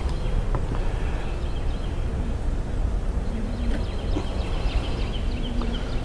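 Honeybees buzzing around an open hive during a frame inspection, single bees humming past about three seconds in and again near the end. A low steady rumble lies under it, and small birds chirp faintly in the second half.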